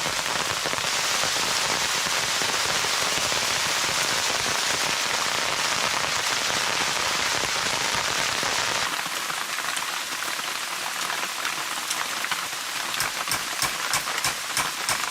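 Steady rain falling as an even hiss. About nine seconds in, the sound changes abruptly to lighter rain, with separate drops tapping sharply near the end.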